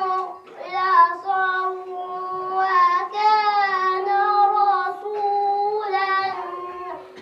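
A boy reciting the Quran in melodic chanted style (tajwid), holding long notes with small ornamental turns of pitch and taking short breaths between phrases.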